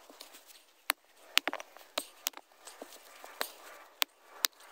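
A series of sharp, irregular clicks and knocks, about ten in under five seconds, over a faint background hiss.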